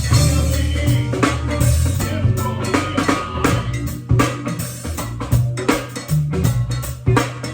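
Band music with a drum kit keeping a steady beat over a bass line.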